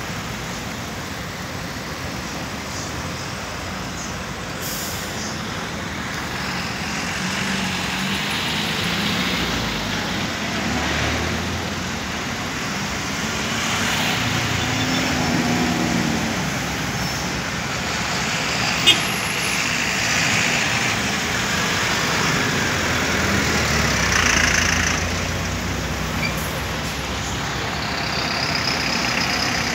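Street traffic made up mainly of city buses: Euro 5 diesel bus engines running as the buses move through, and cars passing. The sound swells several times as vehicles go by, and there is one sharp click about two-thirds of the way through.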